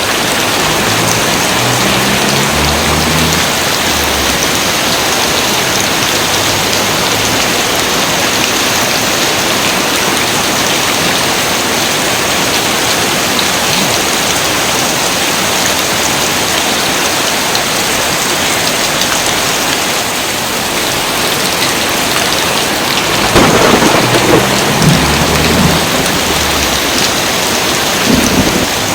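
Heavy rain falling in a steady, dense hiss, with thunder rumbling low a second or so in. A louder thunderclap comes about two-thirds of the way through and rolls on for a few seconds, and a shorter one follows near the end.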